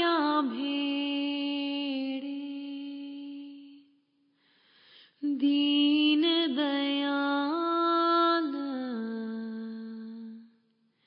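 A single unaccompanied voice singing a devotional shabad in long, drawn-out notes with small ornamental dips in pitch. There are two phrases, with a short breath between them about halfway through.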